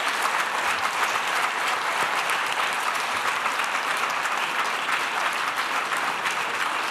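Audience applauding: many hands clapping in a dense, steady patter that holds at an even level throughout.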